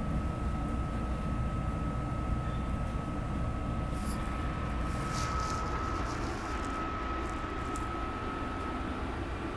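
Inside a Market-Frankford Line elevated train car: a steady low rumble with a constant high whine. Several brief high hisses or squeals come from about four to eight seconds in.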